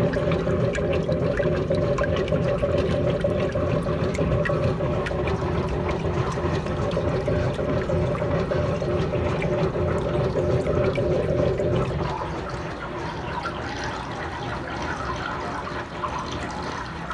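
Electrolux Silent Control LAC12 washing machine taking in water during its settling stage, a steady rush of water into the drum. About twelve seconds in the sound drops a little and changes, but the water keeps running.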